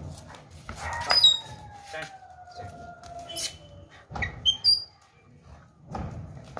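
German Shepherd whining once, a long whine falling in pitch that starts with a sharp sound about a second in. A few short high chirps come between.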